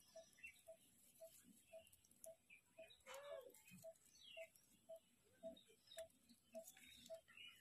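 Near silence, with a faint steady tick about twice a second and a few faint high chirps.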